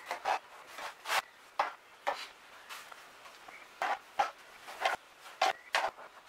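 Spatula scraping and spreading white glue paste onto pine mast staves, in about a dozen short, irregular strokes.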